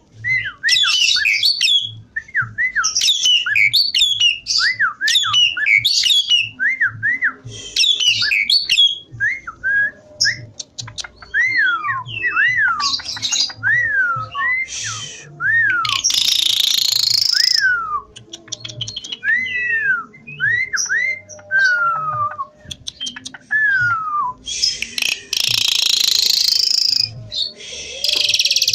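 Javan pied starling in full song: a near-continuous string of clear whistled notes that rise and fall, mixed with harsher chattering phrases. Longer rasping bursts come about halfway through and again near the end.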